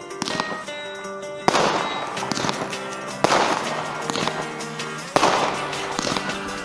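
Fireworks going off: three loud bangs about two seconds apart, each trailing off in crackling, over background music.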